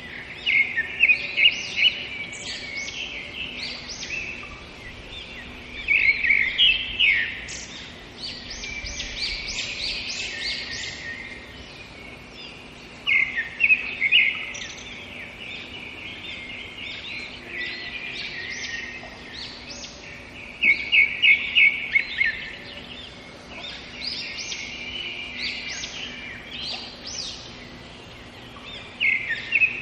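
Songbirds chirping and singing continuously, with several birds overlapping. Every several seconds there is a louder bout of quick repeated high chirps.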